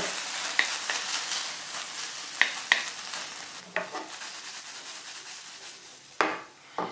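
Ground beef sizzling in a frying pan as a wooden spatula stirs and scrapes it, clicking against the pan now and then. The sizzle fades away, the hot plate having just been switched off. Two louder knocks of the spatula on the pan come near the end.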